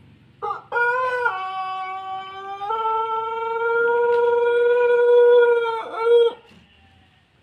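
Ayam pelung rooster giving one long crow of about six seconds: the pitch dips about a second in, steps back up and holds steady, then breaks off near the end.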